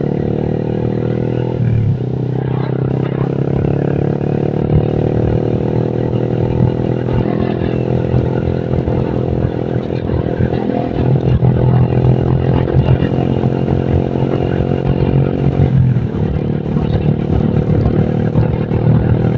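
Motorcycle engine running at a steady cruising speed while riding, with wind rumble on the microphone. The engine note dips sharply twice, about two seconds in and near the end, then settles again.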